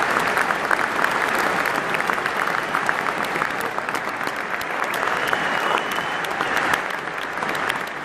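Large stadium crowd applauding and cheering, with dense clapping throughout and a brief high whistle about five seconds in.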